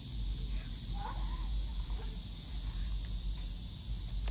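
Steady high-pitched insect chorus over a low rumble, with a faint voice rising briefly about a second in.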